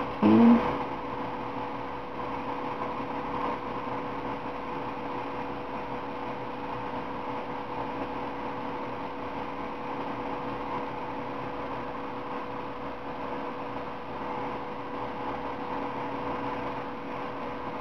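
Steady machine hum with a constant pitched tone, unchanging throughout. A short voice sound comes right at the start.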